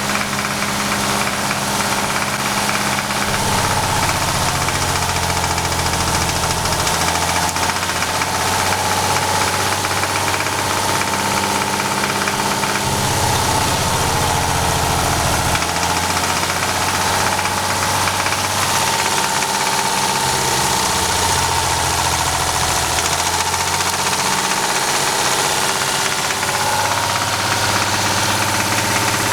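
VW VR6 24-valve engine idling with a knock, tested for rod knock by pulling the ignition coils one at a time. The low engine note changes every few seconds as the idle shifts.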